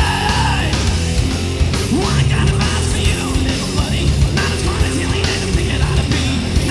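Live rock band playing loud, heavy music: distorted guitars and pounding drums under a shouted lead vocal. A long held note breaks off under a second in, and the band drives on.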